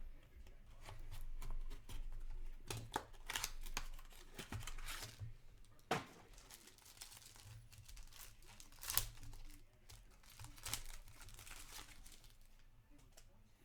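Trading card pack wrapper being torn open and crinkled by hand, a run of irregular crackles and rustles.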